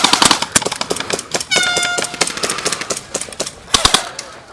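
Airsoft guns firing: a quick run of shots at the start, then scattered single shots and a loud cluster of cracks near the end. A short high-pitched cry about a second and a half in.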